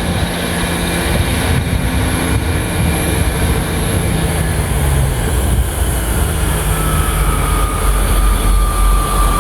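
Train pulling into the platform: a heavy rumble that builds through the second half, with low engine tones dropping in pitch. A thin high brake squeal starts about seven seconds in.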